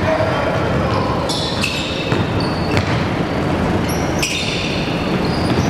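Basketball being played on a gym court: sneakers squeak sharply on the floor several times and a ball bounces, over the steady hubbub of the hall.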